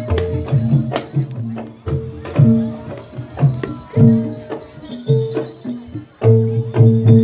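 Javanese gamelan music for a jathilan dance: sharp drum strokes in a driving rhythm over low, ringing metal gong-chime notes.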